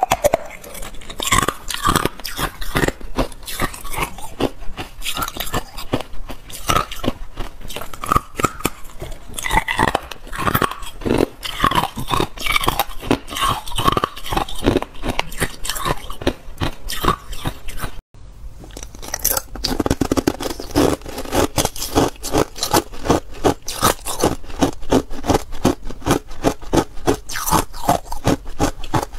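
Hard ice being bitten and chewed right at a clip-on microphone: a dense, irregular run of sharp crunches and cracks, several a second. The sound drops out for an instant about two-thirds of the way through, then the crunching goes on.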